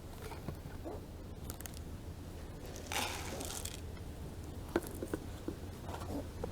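Kittens crunching dry cat food, with small scattered crunches and clicks and a brief hissing burst about three seconds in, over a steady low rumble.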